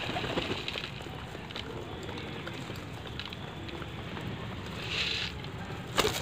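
Gola pigeons pecking grain off concrete, faint scattered clicks over steady wind noise on the microphone. Near the end a sudden loud flutter as a pigeon flaps its wings while grain is tossed down.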